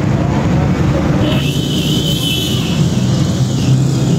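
Road traffic at a busy city junction: a steady, loud rumble of vehicle engines. A higher-pitched tone joins in about a second and a half in.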